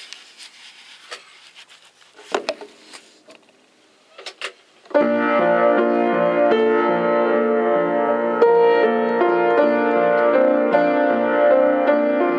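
A few clicks and knocks, then about five seconds in an upright piano starts playing: sustained notes ringing over each other with a sitar-like tone, new notes struck now and then over the ringing chord.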